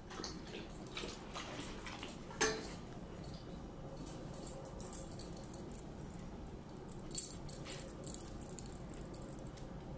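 A chocolate Labrador puppy moving about and sniffing: faint rustles and scattered light ticks, with a cluster of ticks about seven to eight seconds in. One brief sharper sound comes about two and a half seconds in.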